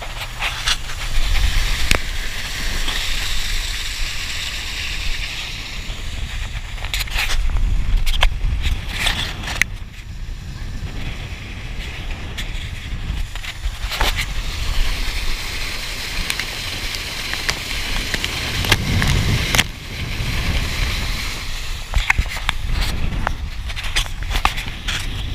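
Outboard-powered speedboat running at speed: a steady engine rumble under rushing wind on the microphone and water spray, with sharp knocks several times as the hull slaps over the waves.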